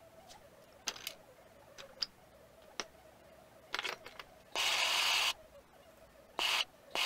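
Light clinks of metal tools being handled, then a few short, harsh bursts of noise, the longest and loudest about halfway through, as a torch-heated carbon-brush spring held in a bench vise is hammered flat.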